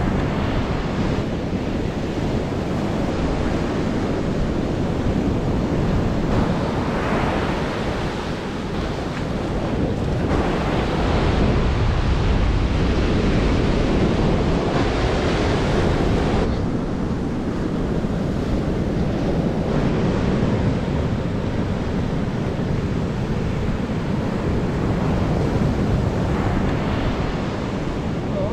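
Ocean surf breaking and washing up the beach, swelling louder with each wave every few seconds.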